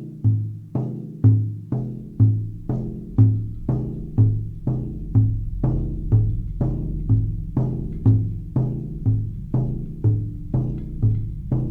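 Meditation music: a low, pitched drum struck steadily about twice a second, each stroke ringing briefly, over a sustained low drone.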